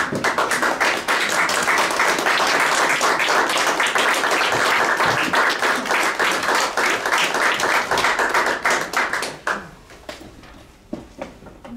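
Audience applauding: steady, dense clapping that thins to a few last claps and dies away about nine to ten seconds in.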